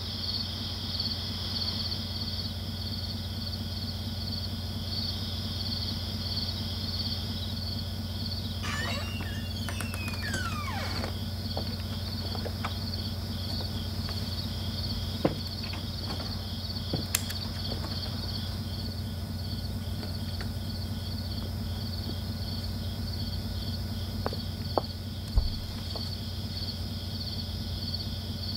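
Crickets chirping in a steady pulsing rhythm, about two or three chirps a second, over a low steady hum, with a few faint clicks here and there.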